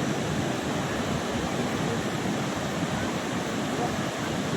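Steady rushing of a large waterfall: a dense, even noise that does not change.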